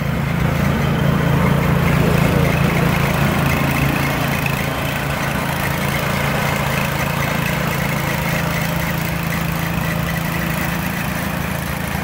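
Pieced-together 'Franken blower', a green walk-behind snowblower with a swapped-in blue engine, running steadily under load as it cuts through deep snow.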